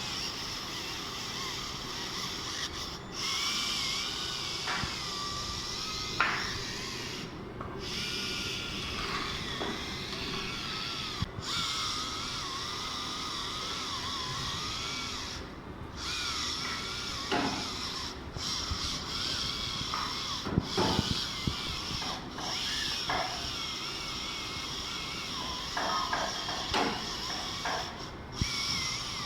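Electric foot file's small motor whirring with a wavering whine as its rotating head grinds dead skin off a heel, broken off briefly several times.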